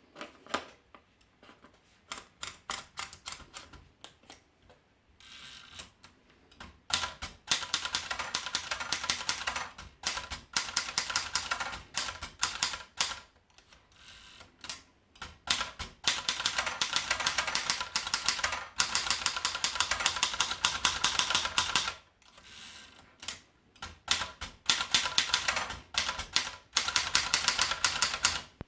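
Hermes Baby portable manual typewriter being typed on: fast runs of key strikes with short pauses between them. Twice there is a softer, smoother swish between the runs.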